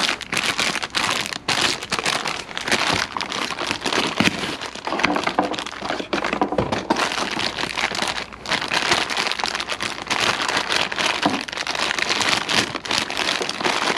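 Bubble wrap crinkling and crackling as it is unwrapped and crumpled by hand, with irregular rustling and small sharp crackles.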